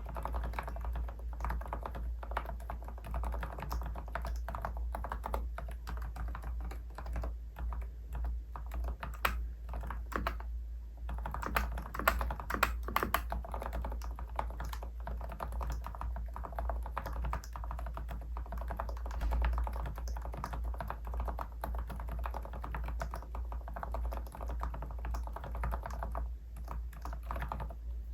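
Keystrokes typed steadily on a Keychron K10 Pro full-size mechanical keyboard fitted with silent red linear switches, in fast continuous runs with a brief pause about ten seconds in.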